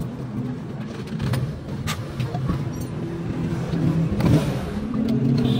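A motor vehicle engine running with a steady low hum, swelling briefly about four seconds in, with a few sharp clicks over it.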